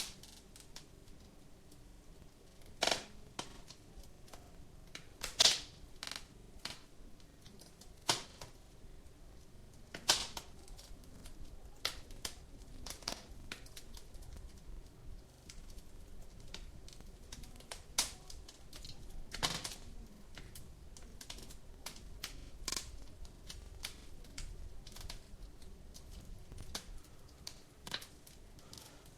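Wood fire crackling in a fireplace: irregular sharp pops and snaps, a handful of louder ones several seconds apart, over a faint low background hiss.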